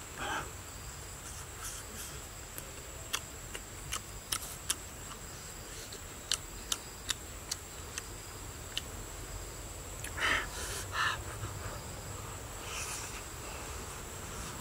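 Eating sounds: a scatter of sharp lip smacks and mouth clicks while chewing, then two short breathy noises about ten seconds in. A steady high-pitched insect drone runs underneath.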